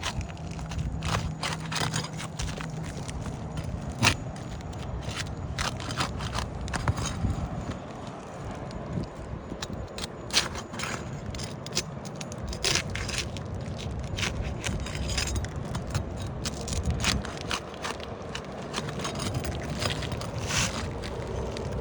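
Brittle old asphalt shingles being pried up and unsealed: irregular scraping with many sharp cracks and crackles as the sealant strips let go and the shingles break.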